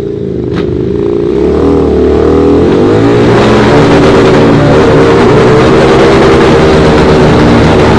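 Harley-Davidson Night Rod's V-twin engine revving, its pitch rising and dipping over the first few seconds, then held at high revs, loud and steady.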